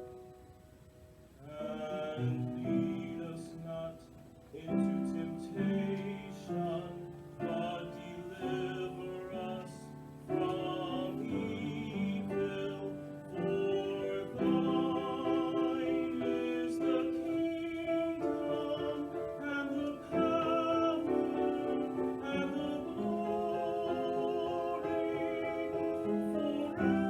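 Music: piano accompaniment under a slow solo melody with strong vibrato. It starts quietly and fills out about a second and a half in.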